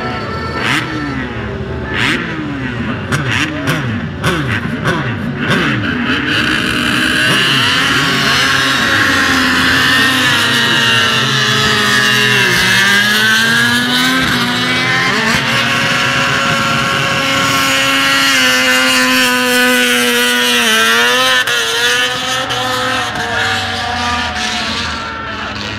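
Several Grand Prix racing motorcycles on track, their engines revving high and sweeping up and down in pitch as they change gear and pass by. The first few seconds hold falling pitches and sharp cracks, then several engines run together with stepping pitches.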